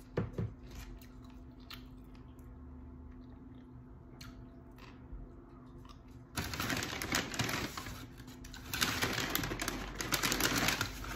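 Crackling, crinkling rustle of tortilla chips being handled and eaten, starting about six seconds in after a quiet stretch with a few soft clicks, and louder again near the end.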